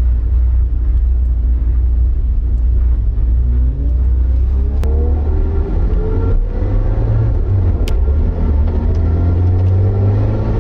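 Porsche 924's 2.0-litre four-cylinder engine heard from inside the cabin, running with a heavy low rumble, then pulling up through the revs about three seconds in. It breaks off briefly for a gear change and climbs again. Two sharp clicks sound along the way.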